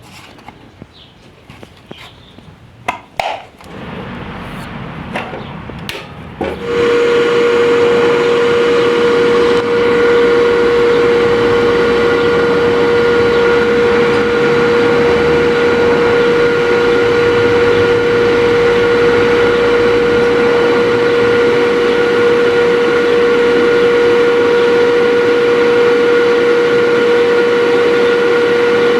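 Scattered clicks and knocks, then about seven seconds in a power tool's motor starts and runs steadily and loudly with a constant whine.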